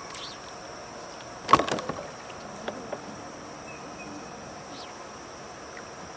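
A sharp knock on a kayak, like gear or a paddle striking the hull, followed by a brief rattle and a couple of light taps.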